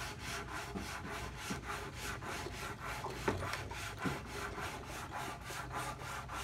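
A few small metal clicks and scrapes as a key is worked in the original steering lock on a 1952 Zündapp motorcycle's headstock, the lock not engaging. Underneath runs a steady rubbing noise with a faint beat about five times a second.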